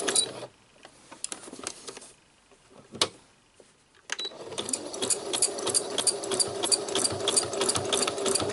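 Electric sewing machine stitching a fine zigzag in free-motion embroidery, couching threads down, with rapid even needle strokes. It stops about half a second in, a single click comes in the pause about three seconds in, and the machine starts stitching again about four seconds in.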